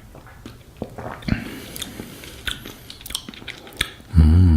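A person sipping tea: small mouth and lip clicks and a short slurp, then near the end a loud, steady hummed "mmm" of appreciation.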